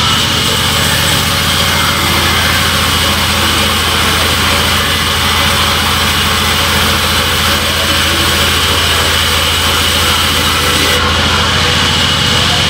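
Sawmill band saw and its drive running with a loud, steady mechanical drone.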